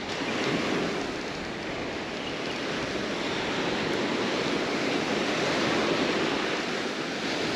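Gulf surf breaking and washing up the sand: a steady, even rush of waves.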